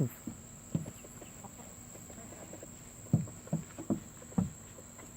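Chickens clucking, a handful of short single clucks scattered through, over the steady high chirring of crickets.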